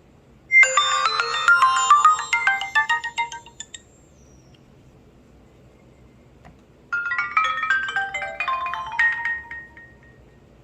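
HTC Desire 530 ringtone: a short melody of quick, bell-like notes that stepping down in pitch, heard twice with a pause of about three seconds between.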